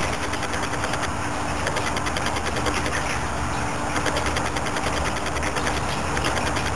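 Window air conditioner running: a steady mechanical hum with a low drone and a fine, fast rattle on top.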